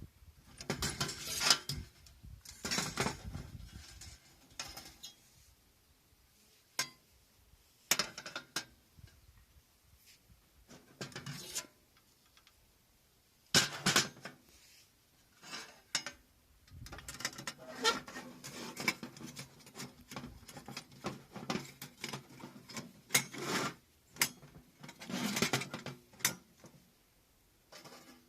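Hard objects being handled: irregular clinks and clattering in short bursts, with quiet pauses between them.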